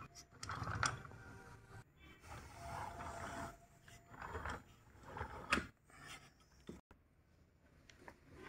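Faint, irregular scraping and rubbing of a plastic toy train rolling along a plastic track, with a few sharp clicks.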